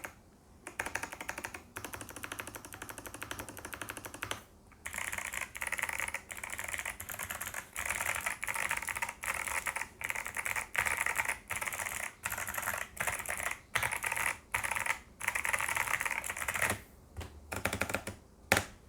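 Fast typing on an Everglide SK68 gasket-mount keyboard with clicky Kailh Box White switches and PBT keycaps. The keystrokes come in quick runs separated by short pauses, then thin to a few single strokes near the end, the last one louder.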